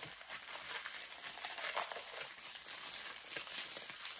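Thin plastic bag crinkling and crackling as hands work at it to pull a vinyl Funko Soda figure free; the bag has melted onto the figure. The crinkling is steady, with a few louder crackles.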